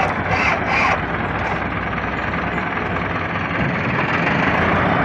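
Diesel tractor engine running with a steady low rumble that grows a little louder near the end, during a push start of a tractor that will only start by being pushed.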